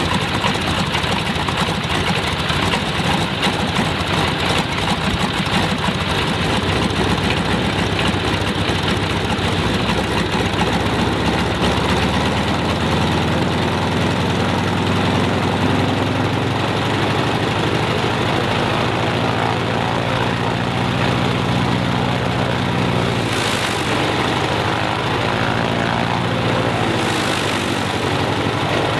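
Stinson L-1's nine-cylinder Lycoming R-680 radial engine running steadily on a single magneto, its distributor drives re-timed 180 degrees. Its low note shifts about twelve seconds in.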